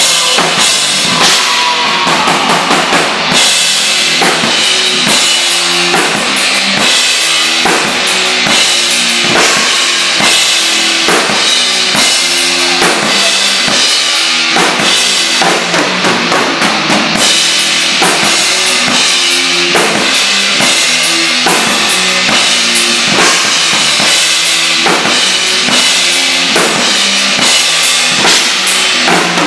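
Full drum kit played hard through a heavy-metal song: a dense, steady pattern of kick drum, snare and cymbals with no letup.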